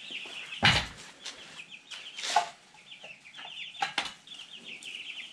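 Two-week-old meat chicks peeping steadily in short, high, falling chirps. A few sharp knocks come from the metal trough feeder being handled, the loudest less than a second in.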